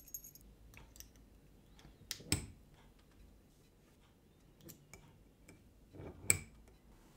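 Metal spring clips clicking onto the glass lid of a preserving jar with a rubber sealing ring, closing it. Light ticks and clinks throughout, with two sharper clicks, about two seconds in and near the end.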